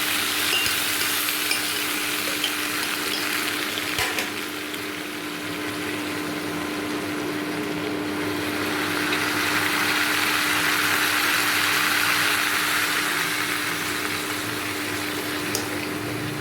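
Chopped onions and tomatoes sizzling in oil in a pan, cooking down for chutney. A steady low hum runs underneath, and there is a sharp click about four seconds in and another near the end.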